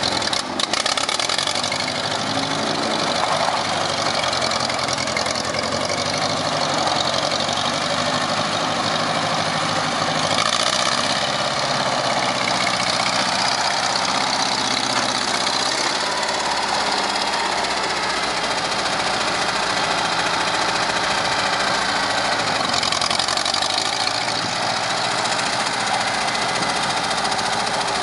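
Allis-Chalmers D17 tractor engine running steadily as the tractor drives about with its front loader.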